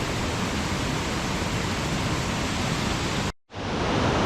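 Steady rush of a mountain creek running close by. The sound drops out abruptly for a split second near the end, then resumes.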